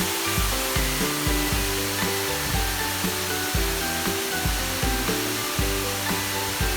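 Background music with a steady beat about two and a half times a second and a moving bass line, over an even rushing hiss.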